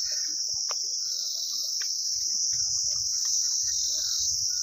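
Steady high-pitched insect drone from the surrounding forest trees, with scattered small knocks and low rustling beneath it.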